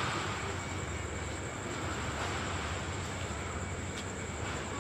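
Diesel locomotive running with a steady low drone, the idling or slowly approaching engine of a train at the station.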